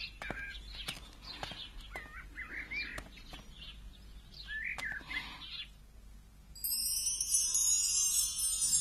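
Small birds chirping in short repeated calls, with scattered sharp clicks, dying away about five and a half seconds in. About a second later high ringing chimes of music come in, louder than the birds.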